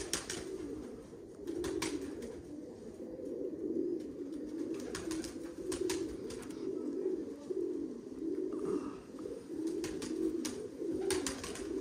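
Domestic pigeons cooing, one low warbling coo after another, with a few light clicks now and then.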